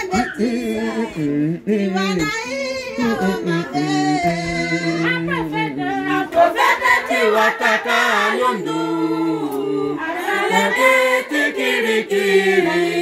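A group of women singing together unaccompanied, several voices holding and sliding between long notes.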